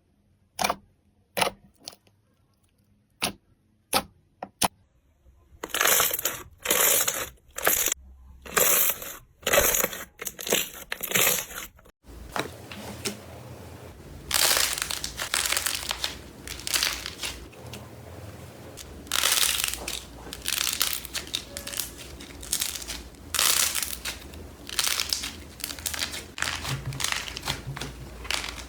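Slime being worked by hand in three clips: first a run of sharp, separate pops and clicks, then rhythmic squishing about twice a second. After a sudden cut, a steady crackling and crunching runs on, with louder squeezes, as of crunchy slime being pressed.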